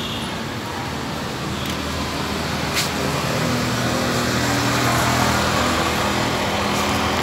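A motor vehicle's engine running close by over general street noise, its low hum coming in and growing slightly louder from about halfway through.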